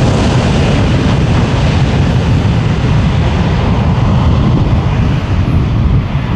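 The two CFM56 turbofan engines of a Boeing 737-800 running at high power for takeoff: a loud, steady jet rumble and roar, heaviest in the bass.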